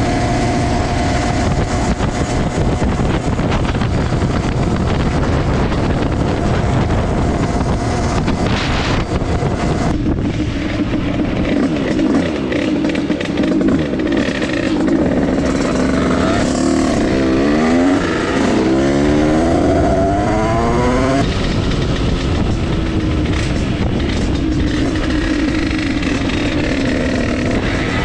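Derbi Senda dirt bike's two-stroke engine with a Stage6 88cc kit, running at speed with a strong hiss, then easing off about ten seconds in. Past the middle it revs up in a quick series of rising sweeps, pulling away through the gears, then runs on steadily and starts rising again near the end.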